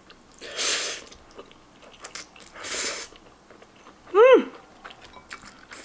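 Instant noodles slurped into the mouth twice, about two seconds apart, with faint chewing between. About four seconds in there is a short vocal sound that rises and falls in pitch, the loudest sound here.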